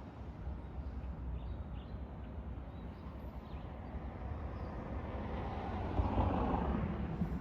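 Low, uneven outdoor rumble that swells slightly near the end, with a few faint high chirps.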